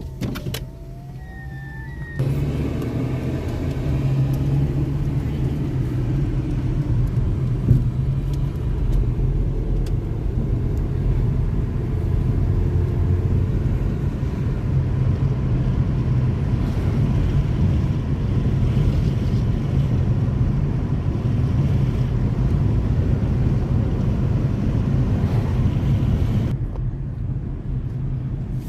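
Car driving, heard from inside the cabin: a steady low engine and road rumble that gets louder about two seconds in as the car gets under way.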